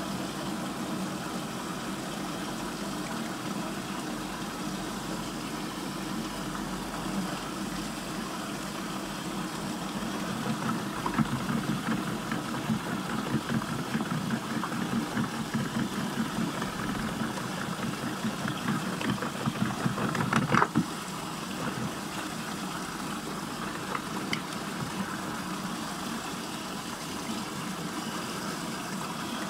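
Water whirlpool churning and gurgling steadily down its central hole as a continuous rumble. It grows louder in the middle, with a short louder burst about twenty seconds in, then settles back.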